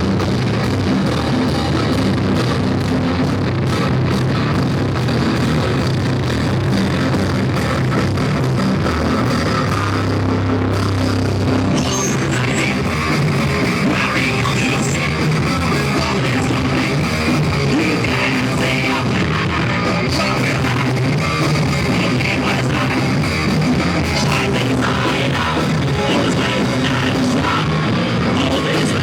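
Rock band playing live: distorted electric guitars, bass and drum kit, loud and dense, recorded with poor, muddy sound.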